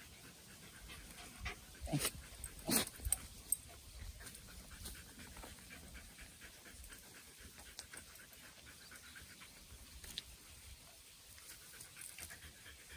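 Dog panting rapidly, with a few sharp clicks and knocks about two to three and a half seconds in.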